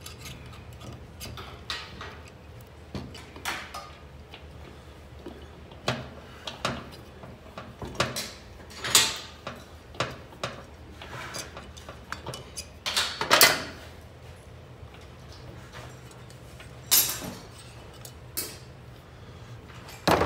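Irregular metallic clicks and clinks of a valve spring compressor and small steel valve parts being worked on an aluminium motorcycle cylinder head, with a few louder knocks about 9, 13 and 17 seconds in. This is the valve spring being released after its retaining clips are out.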